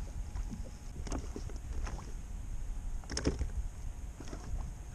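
Water lapping against a Hobie Outback fishing kayak, with wind on the microphone and a few light clicks and knocks of fishing tackle being handled; the sharpest knocks come about a second in and about three seconds in.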